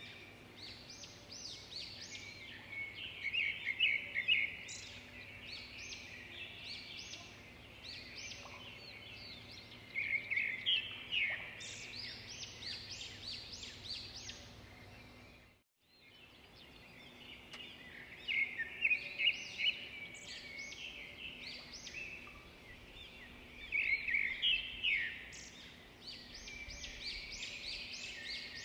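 Songbirds chirping and trilling in quick, high runs over a low background hum, louder in clusters every few seconds. The sound cuts out suddenly for a moment about halfway through.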